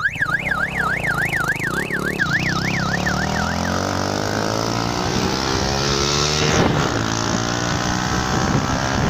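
Police-style siren fitted to a motorcycle, wailing rapidly up and down about three times a second, then fading out about four seconds in. Beneath it a motorcycle engine runs and climbs steadily in pitch as the bike accelerates.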